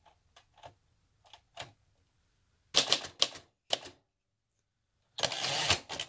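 Singer Professional T-62 manual typewriter, a rebadged Royal Safari: a few faint mechanism clicks, then a quick run of about five loud type-bar strikes. Near the end the carriage is thrown back with a long rattling sweep.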